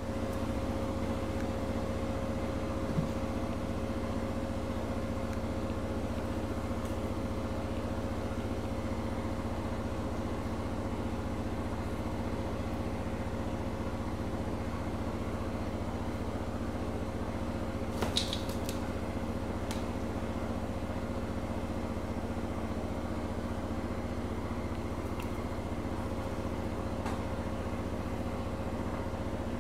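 A steady low machine hum with a constant faint tone in it, unchanging throughout. A light click sounds a few seconds in, and a short cluster of sharp clicks comes a little past halfway.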